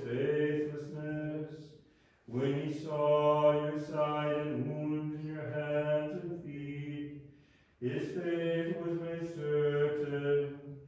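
Unaccompanied Orthodox liturgical chanting of a Vespers hymn, sung in long held phrases with two short breaks, about two seconds in and near eight seconds.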